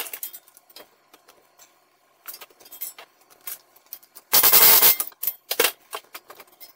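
Pneumatic air hammer firing in one short burst of about half a second, a little over four seconds in, driving a press-fit stud out of the wheel hub. Light metallic clinks and taps from handling the tool and parts come before and after it.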